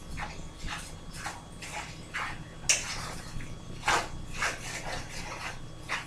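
A utensil stirring noodles and eggs in a skillet: short scraping strokes about twice a second, two of them louder near the middle, over a low steady hum.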